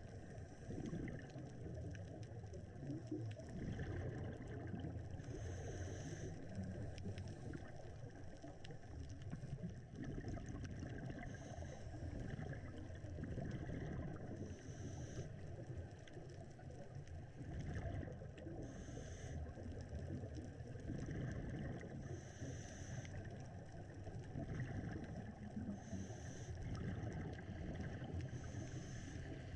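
Scuba diver breathing through a regulator underwater: a short bubbling exhale hiss about every three to four seconds over a steady low underwater rumble.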